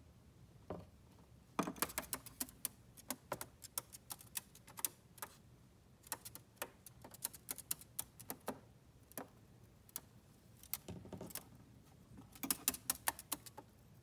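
Cockatiel's toenails tapping on a hard plastic dollhouse floor as it walks about: irregular sharp clicks in quick clusters, densest about two seconds in and again near the end.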